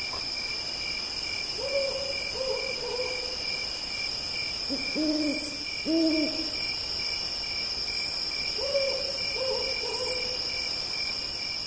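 Owl hooting in short groups of about three calls, spaced a few seconds apart, over a steady high chirring of crickets or other night insects.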